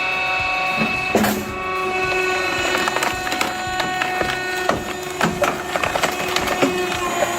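Firewood processor splitting logs: wood cracking and splintering in many sharp snaps over a steady machine hum.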